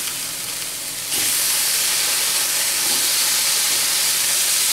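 Sirloin steaks sizzling hard in a very hot cast-iron skillet, a steady hiss that jumps louder about a second in as a steak is turned over onto its uncooked side.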